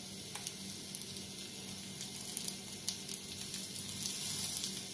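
Chicken tikka pieces sizzling steadily in oil on a flat tawa griddle, with scattered small pops and clicks; the pieces are browned and cooked through.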